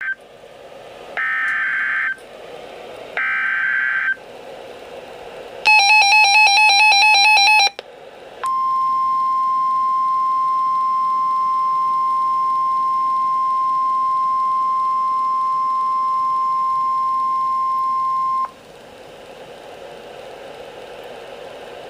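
NOAA Weather Radio Emergency Alert System activation: two short screeching bursts of SAME header data, then about two seconds of loud rapid electronic beeping, then the steady 1050 Hz warning alarm tone held for about ten seconds. The tone cuts off sharply to radio hiss.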